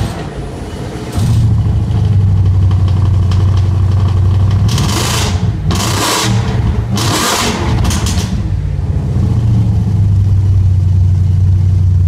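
Audi RS5's 4.2-litre V8 through a custom exhaust firing up about a second in and settling into a steady low idle. Three short, sharp throttle blips come around the middle.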